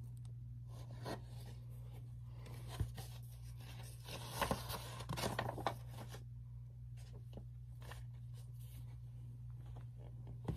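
Paper pages of a picture book rustling and being handled as a page is turned, in a short cluster of rustles and light clicks about four to six seconds in, over a steady low hum.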